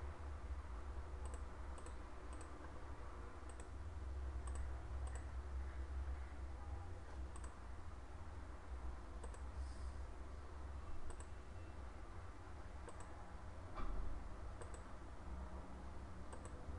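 Computer mouse clicking: about a dozen single clicks spaced irregularly, over a steady low hum.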